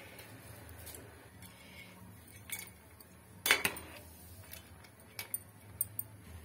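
Metal tongs clinking and knocking against the kadhai while stirring noodles in boiling water: a few sharp, separate knocks, the loudest about three and a half seconds in.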